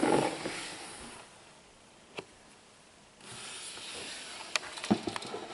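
Plastic tubs in a reptile rack: one slides shut with a scraping rush that fades over the first second, a single click comes about two seconds in, then the next tub scrapes out of the rack with a few sharp knocks near the end.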